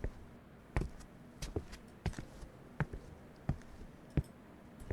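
Footsteps on a hard floor: about six sharp, evenly spaced steps, a little faster than one a second.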